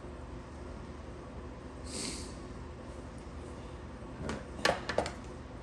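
Scissors and fingers working at an extension cord's insulation while stripping the wire by hand: a short sharp breath about two seconds in, then a quick cluster of sharp clicks and snaps near the end, over a steady low hum.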